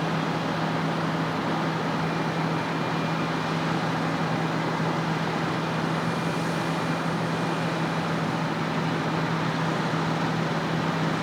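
Heavy farm machinery running steadily: an engine's even hum under a broad rushing noise, with no change in speed.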